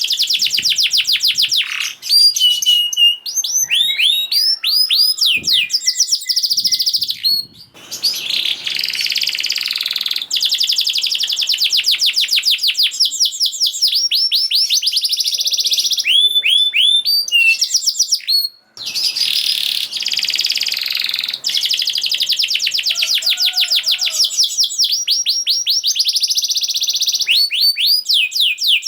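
Domestic canary singing a fast rolling song: long trills of rapid, repeated sweeping notes, broken by brief pauses and a few slower, separate phrases.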